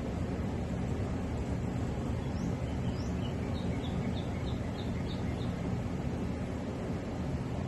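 Outdoor ambience: a steady low rumble, with a small bird chirping a quick run of about eight short high notes in the middle.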